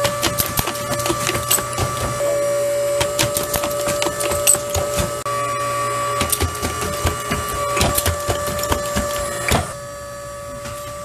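Cookie-cutter forming machine at work: a steady hum with rapid, irregular clicks and clacks as its radial forming tools bend thin steel strip into a gingerbread-man cutter. A louder clack comes about nine and a half seconds in, after which the sound is quieter.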